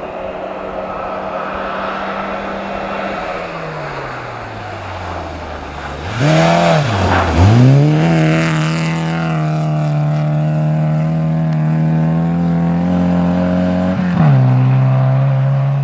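Volkswagen Golf Mk2 rally car on a snow stage. Its engine note falls as it slows, then goes loud about six seconds in with revs sweeping up, down and up again. It runs high and steady under throttle as the car slides past with a hiss of snow spray, and a gear change comes near the end.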